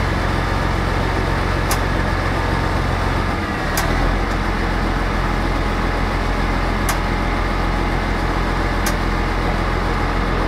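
Fire engine's engine running steadily close by, a constant low hum, with a short sharp click every two to three seconds.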